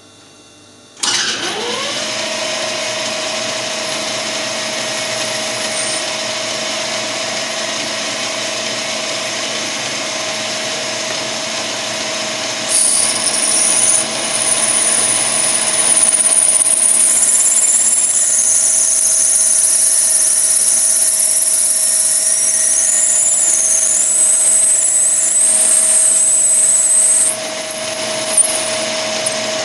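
Small Smart & Brown Model A lathe motor starting about a second in and running up to a steady speed of about 1000 rpm with a constant hum. From about 13 s to 27 s a high, wavering whine is added as a drill in the tailstock cuts dry into the end of a free-cutting brass bar. There is a single click near the end.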